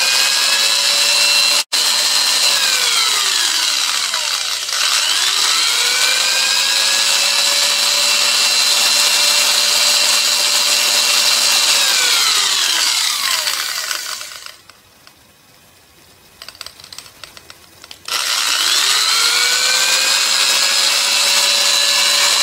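Corded electric drill running off a homemade 12 V to 220 V modified-sine-wave inverter. It spins up with a rising whine, runs steadily, and winds down several times: it stops about three seconds in, restarts about two seconds later, winds down around thirteen seconds in, and after a few seconds of quiet starts again about four seconds before the end.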